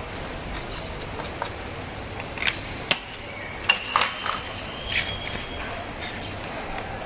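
Metal clinks and taps at a lathe: several sharp metallic knocks from about two to five seconds in, one leaving a short ringing tone, over a steady workshop hum.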